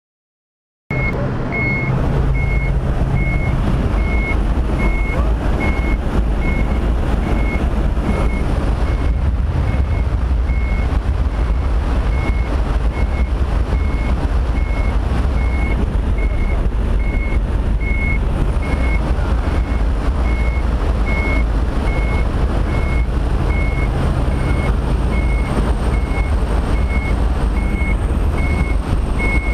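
Light aircraft's engine droning steadily with loud wind rushing through the open jump door, heard inside the cabin, starting abruptly about a second in. A thin high beep repeats about twice a second throughout.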